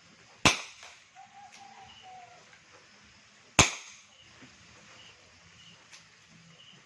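Two sharp shots from a WinGun Revolver Sports 708 CO2 airsoft revolver, about three seconds apart.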